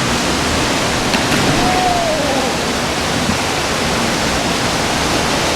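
Waterfall water rushing, a loud, steady, even noise.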